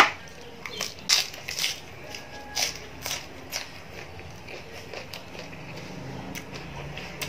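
Crisp snapping and crunching of fresh lettuce leaves being torn by hand and crispy fried fish being handled and eaten. A sharp snap comes right at the start, then a run of quicker crunches over the next few seconds, thinning out near the end.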